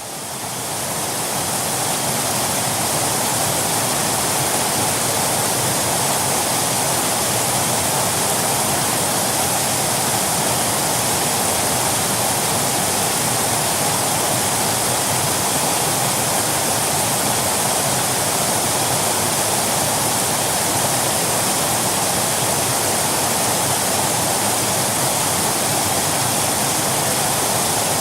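Waterfall: a steady, dense rush of falling water that fades in over the first second or two and then holds even.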